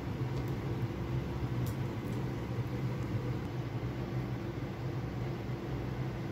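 Steady mechanical hum with an even hiss, with a few faint clicks in the first couple of seconds.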